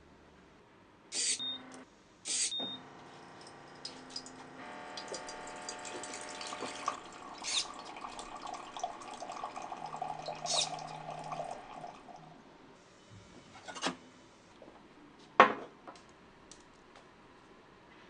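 Two short mechanical clicks, each followed by a brief high beep, about a second and two and a half seconds in, then water running from a dispenser spout for about seven seconds. Near the end come a few sharp clicks of a small switch-pushing bot, the loudest about fifteen seconds in.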